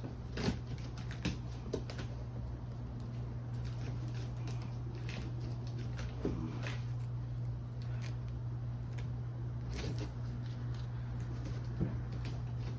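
Scattered rustles, scrapes and light clicks of a cardboard box being handled, over a steady low hum.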